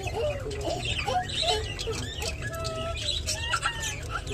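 Budgerigars chattering: a busy run of short whistled chirps and warbled notes, some gliding up or down, over a steady low hum.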